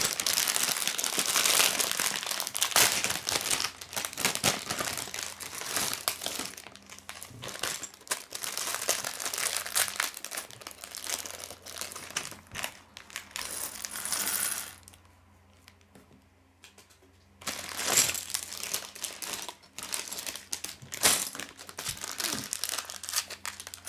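Clear plastic Lego parts bag crinkling as it is opened and handled, with small plastic bricks clicking and clattering onto a wooden table. The crinkling is densest in the first several seconds, and there is a quiet pause of about two seconds past the middle.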